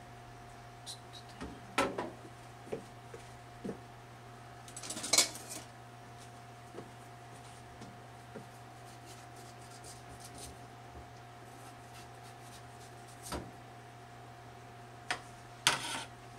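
Kitchen utensils handled on a stainless-steel counter and a wooden cutting board: a few scattered knocks and clinks, the loudest about five seconds in, over a steady low hum.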